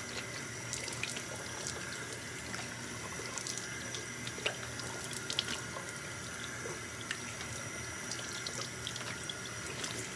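Bathroom faucet running steadily into a sink, with scattered small splashes and drips as water is cupped in the hands and splashed onto the face to rinse off a facial scrub.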